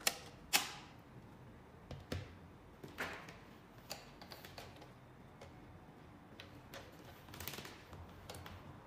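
Scattered clicks and knocks of ceiling speakers being handled and set down on a wooden tabletop, the two sharpest in the first second.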